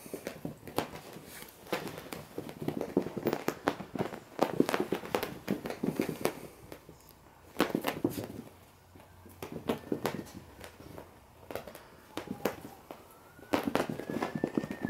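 Beagle puppies playing and scuffling, heard as irregular bursts of sharp clicks and crackles that come every second or two.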